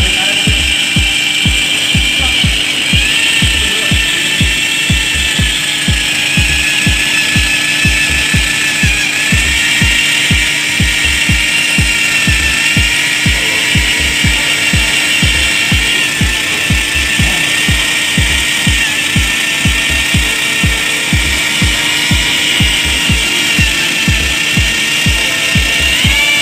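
Electric drill turning a mixing paddle in a can of orange marine chock resin, running steadily with a motor whine that wavers slightly in pitch over an even low pulse about three times a second.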